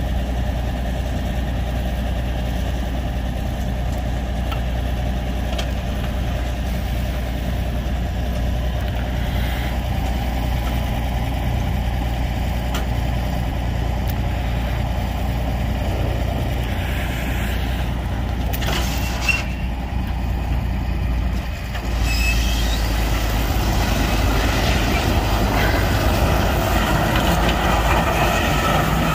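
A vehicle engine running steadily with a low hum. About three-quarters of the way through, a louder rushing noise comes in on top of it and keeps building.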